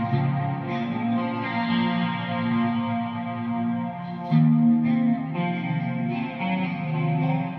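ESP LTD Arrow Black Metal electric guitar with a single EMG 81 pickup, played on a clean amp tone: picked notes and chords ringing out and changing every second or so, with one harder-picked, louder chord about four seconds in.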